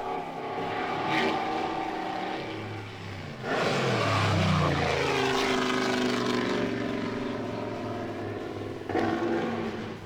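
Mercedes-Benz Grand Prix racing car engine running hard at speed. About three and a half seconds in the car sweeps past loudly, its engine note falling in pitch as it goes away, and near the end another loud burst of engine sound cuts in.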